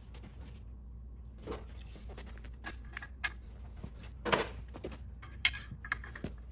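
Scattered sharp metallic clinks and clatters of steel hand tools being handled: a steel bar being fitted against a three-jaw gear puller and its ratchet wrench. The loudest clink comes about four seconds in.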